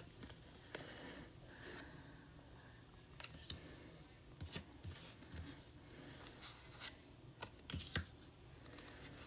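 Faint handling of Pokémon trading cards: scattered light clicks and soft rustles as the cards are slid and flipped through one by one.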